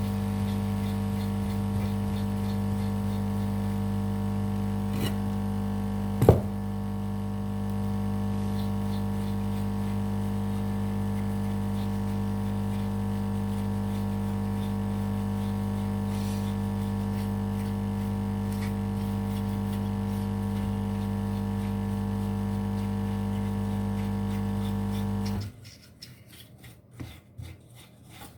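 Electric hot-air blower humming steadily, with a sharp click about six seconds in; it is switched off and cuts out suddenly a few seconds before the end, leaving small handling sounds.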